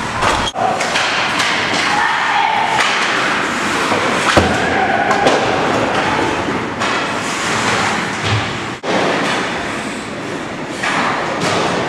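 Ice-hockey play close to the boards: skate blades scraping and carving the ice, with sharp knocks and thuds of sticks and pucks against the boards.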